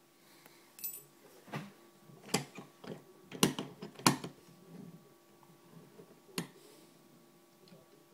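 Irregular sharp metallic clicks and taps of lock picks and a tension tool working the pins of a Sterling removable-core padlock during single-pin picking, the loudest two about three and a half and four seconds in, over a faint steady hum.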